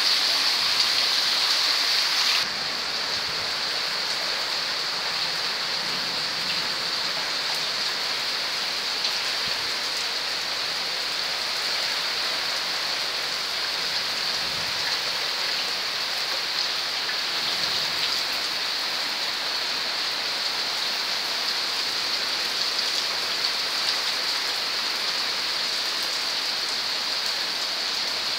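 Heavy rain falling, a dense, even hiss with no let-up; it drops slightly in level about two seconds in and then holds steady.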